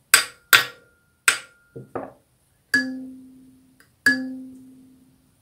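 Kalimba being tuned: three sharp metallic taps of a tuning hammer on a tine, then two lighter knocks, then the tine plucked twice. Each pluck rings a low C note that fades over about a second and a half. The taps shift the tine to bring its pitch onto C.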